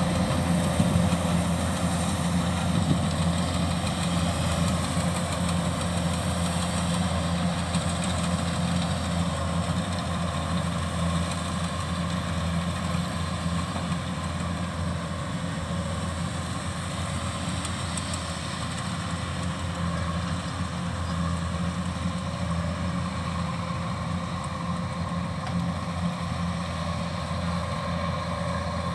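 Combine harvester's diesel engine running steadily at a constant speed, an even low hum.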